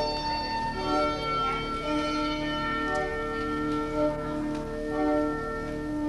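Music of long held notes, several sounding together, the chord shifting about every second.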